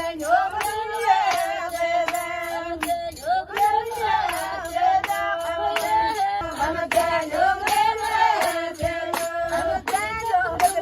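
High voices singing a melody to a steady beat of sharp strokes, about two or three a second.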